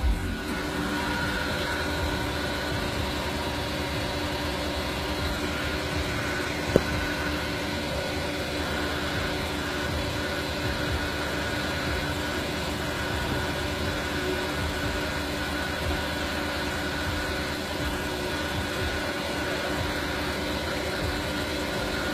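Steady mechanical hum of a fuel dispenser's pump running, with a single sharp click about seven seconds in.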